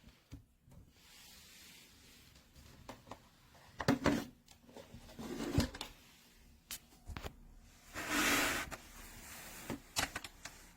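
Handling noises: scattered clicks and knocks, with a short scraping rustle about eight seconds in.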